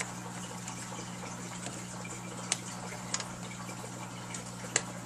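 Three light, sharp clicks of small parts being handled as a flat ribbon cable is worked out of its connector inside a disassembled LCD monitor, the last the loudest, over a steady low hum and hiss.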